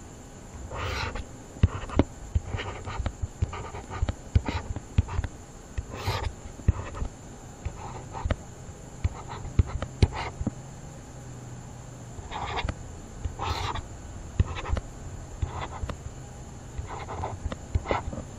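Irregular taps and clicks of a stylus on a writing tablet as digits and lines are written by hand, with a few short rushes of breath close to the microphone and a low steady hum.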